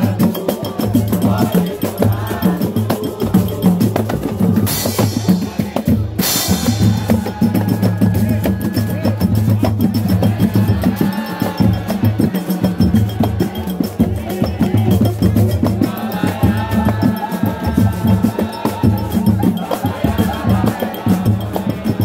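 Live samba percussion: a deep bass drum beating steadily under a pandeiro and other hand percussion, with voices singing over it at times. A short burst of hiss cuts in about five seconds in.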